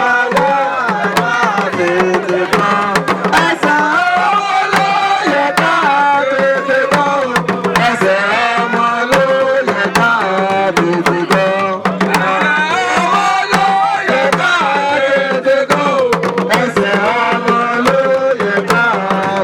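Music with fast hand-drum percussion under a melody that slides up and down in pitch.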